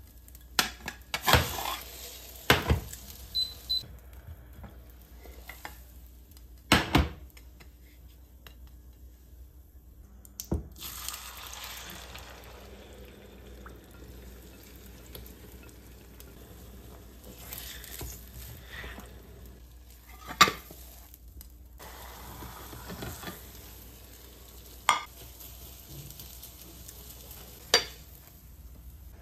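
Kitchen utensils and dishes clinking and knocking against a frying pan, about ten sharp knocks spread out over the stretch, over a faint steady sizzle of frying.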